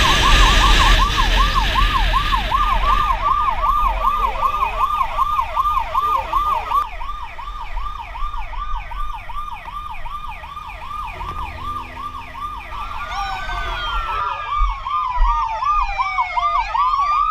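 Motorcycle escort siren sounding a fast yelp, about three sweeps a second, clearing traffic ahead. Near the end it changes to slow long glides, falling and then rising.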